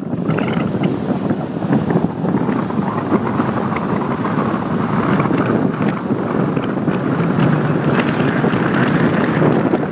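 Wind noise on the microphone of a moving car, over the steady sound of the car driving along the road.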